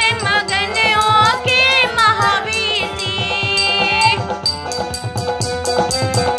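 Electronic arranger keyboard playing by hand: a wavering lead melody over the keyboard's built-in drum rhythm, about four beats a second, with held chords. The melody stops about two-thirds of the way through, leaving the beat and chords running.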